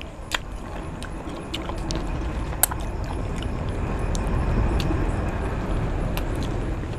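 Close-miked chewing of chicken biryani and chicken, a steady wet mashing with scattered sharp mouth clicks.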